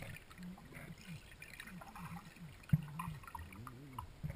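Muffled underwater gurgling and bubbling from air bubbles and water moving around the submerged camera, in short warbling sweeps with scattered clicks. There is one soft thump about two and a half seconds in.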